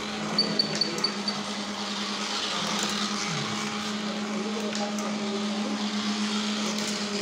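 Steady low electric hum with a quick string of about five faint high beeps near the start, over background chatter.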